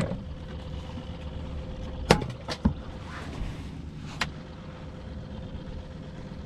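A boat motor running steadily at low speed, a low hum with a faint steady whine over it, broken by a few sharp knocks about two seconds in and once more near four seconds.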